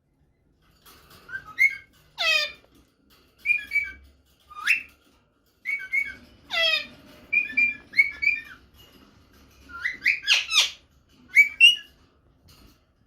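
Rose-ringed (Indian ringneck) parakeet calling in a run of about a dozen short whistled chirps and sharp screeches, several sweeping steeply down in pitch, with short pauses between them. The uploader offers it as a female's mating call that draws a male.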